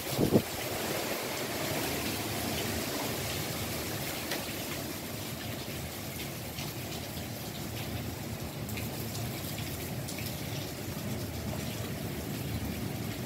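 Heavy rain falling steadily, a constant hiss with scattered drips and splashes on the wet porch railing and floor. A brief low thump comes in the first second.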